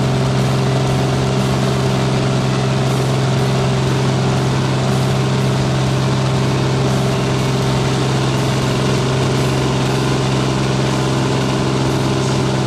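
High-wing light aircraft's propeller engine running steadily, a constant drone over a rushing hiss of airflow.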